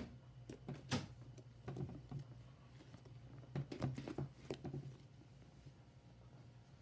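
Green homemade slime squeezed and pressed by hand on a wooden tabletop: faint, scattered sticky clicks and squelches in a few short bunches, stopping about five seconds in.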